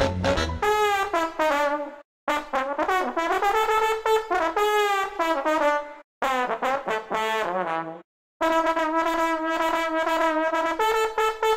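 Brass-led salsa background music with trumpet and trombone phrases. It drops out to silence briefly three times.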